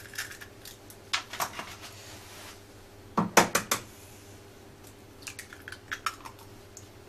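Clinks and knocks of kitchen utensils and eggs against a mixing bowl while eggs are worked into flour for crêpe batter. There is a cluster of sharp knocks about three seconds in and a run of lighter clicks near the end.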